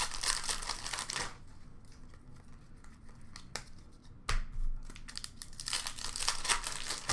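Plastic trading-card pack wrappers crinkling and tearing as hockey card packs are ripped open by hand, in two spells: through about the first second and again from about five and a half seconds on. In between come a few light taps and a soft thump about four seconds in.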